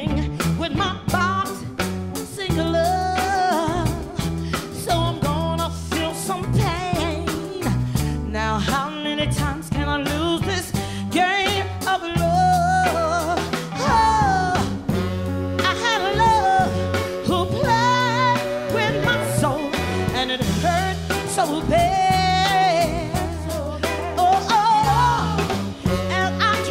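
Live soul band music: a woman singing lead over electric bass, drums and electric guitar.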